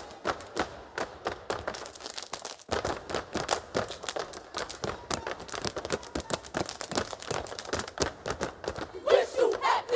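A step team stepping: rapid, rhythmic foot stomps, hand claps and body slaps struck in unison. About nine seconds in, the steppers start shouting.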